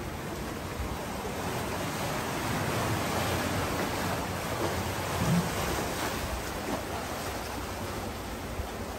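Sea waves washing on the shore, a steady rush that swells in the middle, with a brief louder surge about five seconds in.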